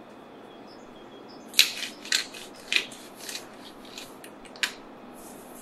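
Hand spice grinder twisted over a bowl, giving a run of about six sharp crunching cracks as salt and pepper are ground, then a short hiss near the end.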